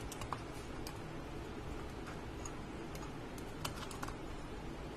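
Light, irregular clicks and ticks of a metal chipset heatsink being handled and pressed on a desktop motherboard, a handful of them with the sharpest about three and a half seconds in, over a steady low hum.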